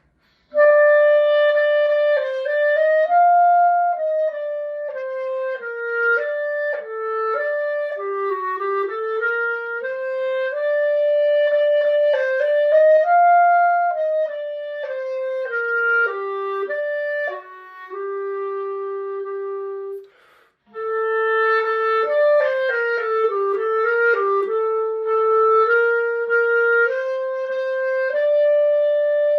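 Unaccompanied solo clarinet playing a flowing melody, one note at a time, with a long held low note and a brief pause about two-thirds of the way through before the line resumes.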